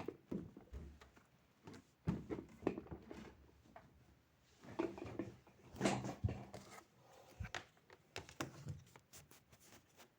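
Faint, scattered light knocks, taps and rustles of small objects being handled, with a few dull low thumps.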